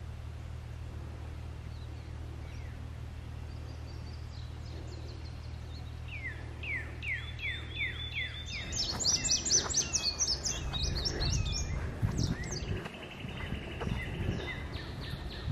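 Songbirds singing in spring woodland: a series of clear downslurred whistles starting about six seconds in, then a fast run of high notes and, near the end, a trill. A steady low hum underlies the first half, and low rumbling noise comes in about halfway through.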